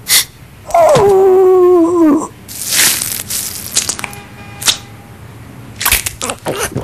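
Cartoon dog giving a long whine at its food bowl, starting high, falling and then held for about a second and a half. A short rough noise follows, with a few small clicks and taps near the end.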